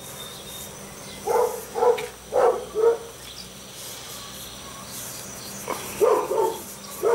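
A dog barking: four short barks about half a second apart, then after a pause another quick run of barks near the end.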